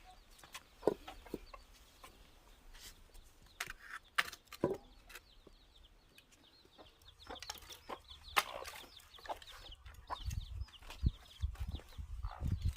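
Chickens clucking, among scattered sharp knocks and clicks.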